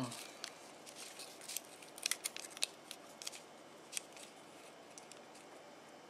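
Scattered small clicks and scrapes of a digital caliper's steel jaws sliding along and being set against a metal Toyota Tarago sliding-door hinge arm, clustered about two seconds in.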